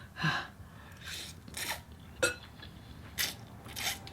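Mouth sounds of eating very spicy instant noodles: about six short hissing slurps and sucked-in breaths, with a light click of a utensil a little past two seconds in.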